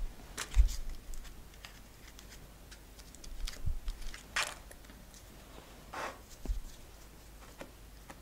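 Crumpled aluminium foil crinkling in short bursts as it is dabbed against soft sugarpaste icing to texture it, with scattered light clicks and a few dull knocks.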